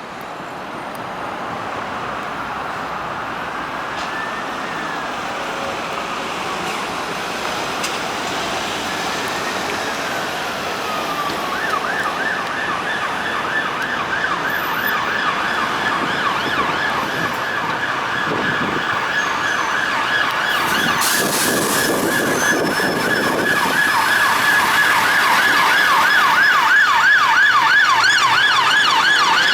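Mercedes Sprinter ambulance's two-tone electronic siren, first in slow wail sweeps rising and falling about every four seconds. Some twelve seconds in it switches to a fast yelp. The siren grows steadily louder throughout.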